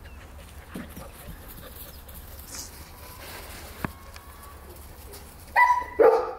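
German shepherd puppies yapping: two short, loud, high yaps in quick succession near the end, after a few seconds of quiet outdoor background with faint scuffling.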